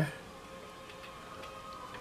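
Quiet workshop room tone: a faint steady hum of two held tones, with a few faint ticks.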